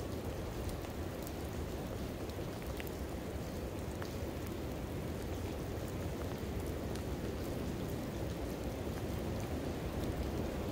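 Steady rain falling, an even wash of noise with scattered faint drop ticks.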